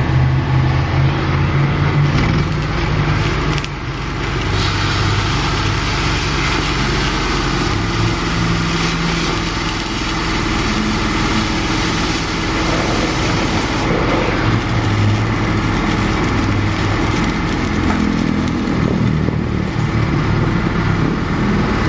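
Arc welding on a steel frame: the steady crackle and sizzle of the arc, over a steady low engine hum.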